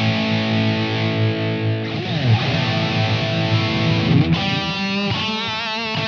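Soloking MT-1 Custom 22 electric guitar with humbucking pickups, played through an amp with a driven tone. A chord rings out, the pitch drops in a downward glide about two seconds in, and single notes with wide vibrato follow near the end.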